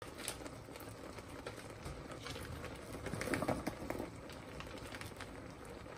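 Cream sauce simmering in a frying pan, with a steady crackle of small bubbles popping. About three seconds in, it grows louder for a moment as tteokbokki rice cakes are tipped in from a plastic bag.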